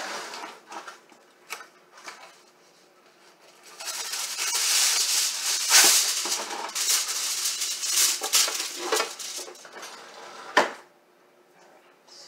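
A plastic bag rustling and crinkling for several seconds as it is handled, after a few light kitchen clicks, ending with a single sharp knock.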